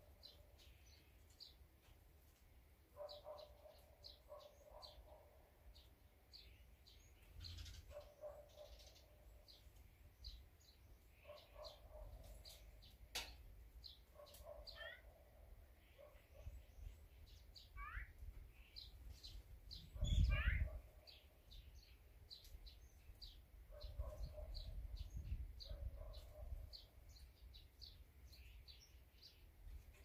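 Small songbirds chirping repeatedly: many short, high chirps throughout, with a few sliding calls near the middle. A short low rumble comes about two-thirds of the way in.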